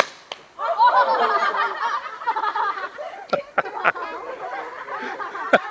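A sharp crack at the very start, then a burst of loud laughter lasting over a second, followed by a few more sharp clicks and quieter laughing.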